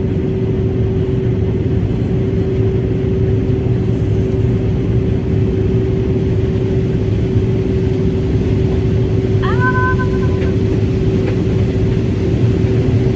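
Combine harvester running steadily while harvesting corn, heard from inside the cab, with a constant hum. About ten seconds in, a short tone rises and then holds for about a second.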